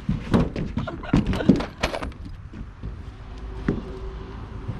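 A series of knocks and thunks, clustered in the first two seconds, from people handling the locked skylight hatch and moving on the metal roof of the school bus.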